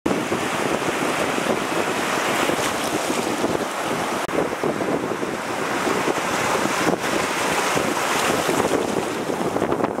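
Sea surf breaking and washing in the shallows, a steady rushing, with wind buffeting the microphone.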